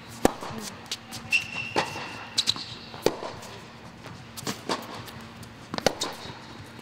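Tennis rally on an indoor hard court: sharp pops of rackets striking the ball and the ball bouncing, about one a second with a quick pair near the end, and a brief shoe squeak early on over a faint steady hum.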